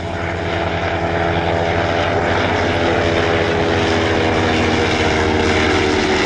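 Clerget rotary engine of a First World War Sopwith fighter in flight, a steady propeller drone with a slight waver in pitch that grows louder over the first second.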